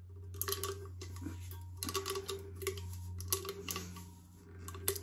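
Sublimation paper and heat-resistant tape crinkling under the fingers as the tape is pressed around a tumbler: irregular short rustles and crackles over a steady low hum.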